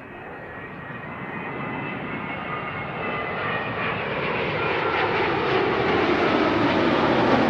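Jet airliner on final approach to land, its engine noise growing steadily louder as it nears overhead.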